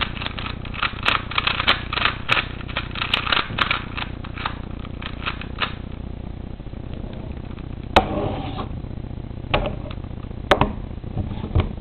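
A Rubik's cube's plastic layers being turned quickly, a rapid run of clicks and rattles that stops about six seconds in. A few separate sharp knocks follow.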